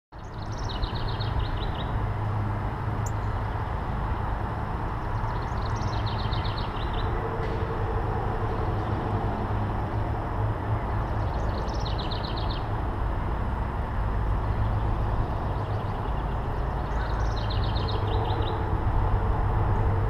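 A small songbird singing the same short song four times, about every five and a half seconds: a high opening note and then a quick run of repeated notes. Under it runs a steady low rumble, the loudest sound throughout.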